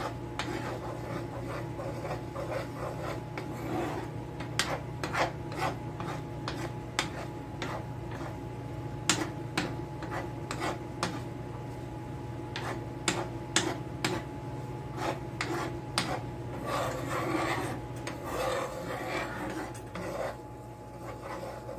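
A metal spoon stirring and scraping through thickening milk sausage gravy in a small 8-inch frying pan, with frequent sharp clicks of the spoon against the pan. A steady low hum runs underneath.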